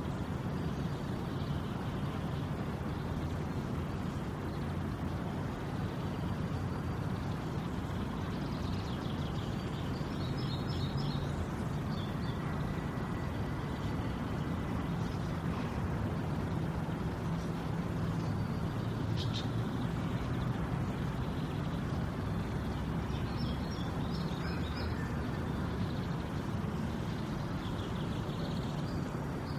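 Steady low rumbling noise, with short bursts of high chirping at about a third of the way through, again past three-quarters, and at the very end.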